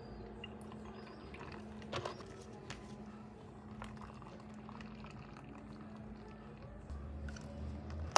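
Milk, then tea, poured from plastic bottles into a plastic cup of tapioca pearls, over a steady low hum. There is a click about two seconds in and a sharp knock at the very end.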